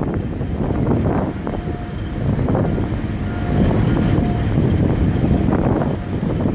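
Wind buffeting the microphone over the steady low rumble of a ship under way. A few faint, brief tones sound over it.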